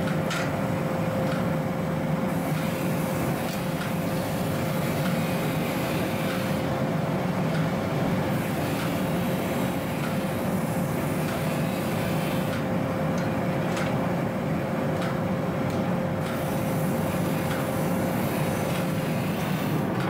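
Steady roar of a gas-fired forge's burner and blower while a steel bar heats in it, with a constant hum and a few faint metallic clinks.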